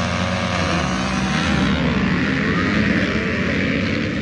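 Motocross bike engine running at a steady pitch, then turning louder and rougher about a second and a half in.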